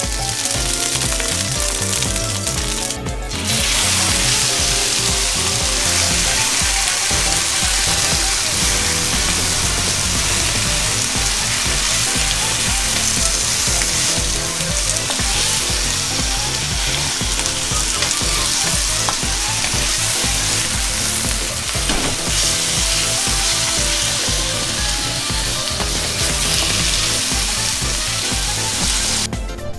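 Beef slices sizzling in hot oil in a wok, stirred with a wooden spatula. The sizzle grows much louder about three seconds in and then stays steady.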